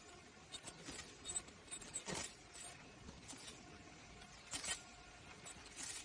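KN95 mask-making machine running, its mechanisms giving irregular light clicks and taps, with a couple of sharper clacks about two seconds in and again later.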